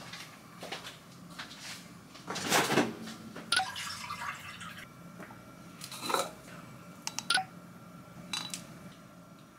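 Household handling sounds: scattered light clicks and knocks, a few of them ringing briefly, with a short hiss about two and a half seconds in.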